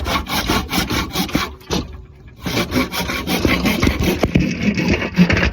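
Handsaw cutting through a wooden four-by-four in quick back-and-forth strokes, finishing a cut by hand. The strokes stop briefly about two seconds in, then resume.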